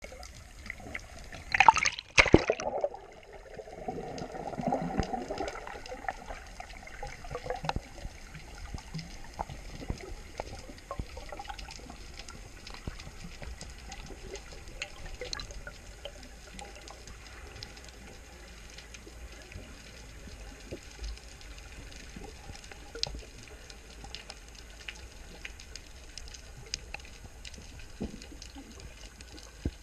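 Underwater sound picked up by a GoPro Hero4 Session's sealed microphone during a slow freedive: a muffled wash of water scattered with faint clicks and crackles. There is a loud rush of water and knocking about two seconds in, followed by a low bubbling rumble that dies away.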